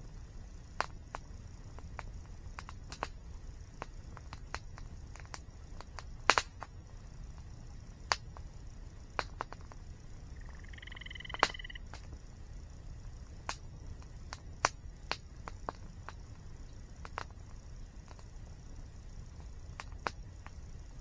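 Wood campfire crackling with irregular sharp pops, over a steady low rush of water from a waterfall. A short bird call about halfway through.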